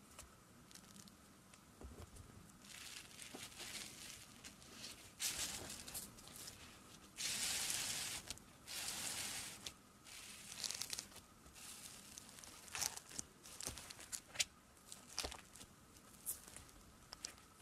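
Fingers pressing into and pulling apart fluffy slime topped with small beads in a plastic tub: a run of sticky crackling and tearing sounds with scattered clicks, and a few longer hissing tears around the middle.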